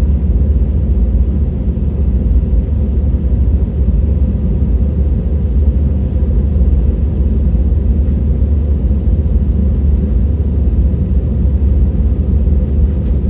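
Steady low rumble of an airliner heard from inside the cabin, the engine and airflow noise unbroken and mostly deep.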